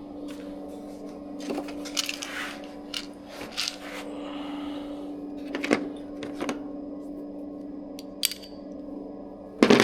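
Scattered metallic clinks and taps of tools and small metal parts being handled, the loudest knocks near the end, over a steady low hum.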